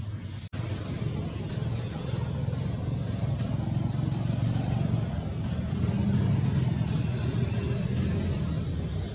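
Steady low rumbling background noise that swells somewhat about six seconds in. The sound drops out briefly about half a second in.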